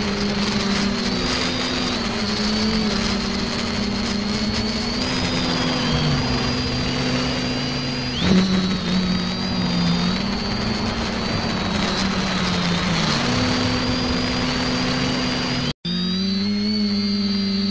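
Quadcopter's electric motors and propellers, heard close from the onboard camera: a steady buzzing hum with a high whine, rising and falling in pitch as the throttle changes. A brief louder burst about eight seconds in, and the sound drops out for an instant near the end before resuming at a steadier pitch.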